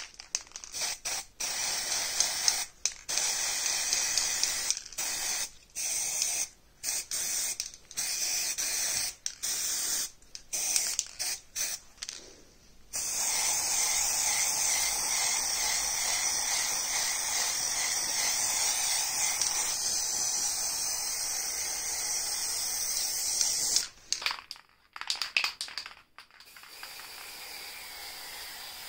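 Aerosol spray paint can hissing as black paint is sprayed onto iron parts: a run of short bursts, then one long steady spray of about ten seconds, then a few more short bursts. A fainter steady hiss follows near the end.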